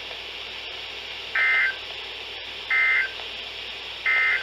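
Three short bursts of NOAA Weather Radio EAS/SAME digital data tones, each about a third of a second of rapid two-tone warbling, spaced about a second and a half apart, over faint radio hiss. Bursts this short after an alert's text are the End of Message (NNNN) code that closes the broadcast alert.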